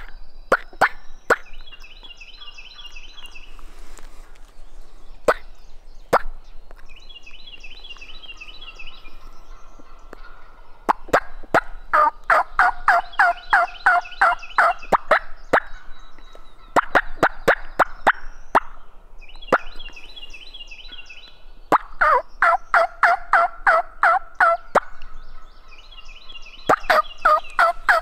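Wild turkey gobbling over and over, long rattling gobbles coming every few seconds from about ten seconds in, with higher fluttering bird calls between them. A few sharp clicks sound in the first several seconds.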